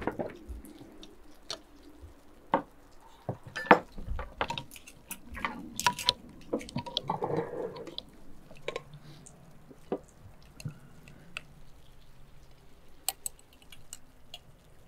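Small hand-held opener prying at the metal lid of a large glass jar of pickled cucumbers in brine: a string of sharp clicks and knocks of metal on metal and glass, the loudest about four seconds in, with some wet sloshing of brine.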